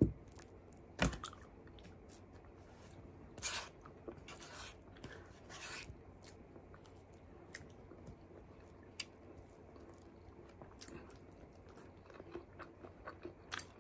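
Close-up chewing of soft food, rice and vegetables eaten by hand, with wet mouth clicks and smacks that come thicker near the end. A sharp knock at the start and another about a second in.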